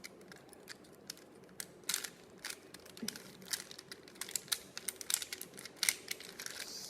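Rubik's Cube being twisted by hand during a solve: an uneven run of short clicks and clacks, several a second, as the layers turn.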